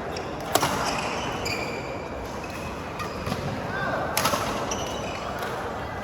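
Badminton rally: sharp racket strikes on the shuttlecock, one about half a second in and a quick cluster around four seconds in, over background chatter.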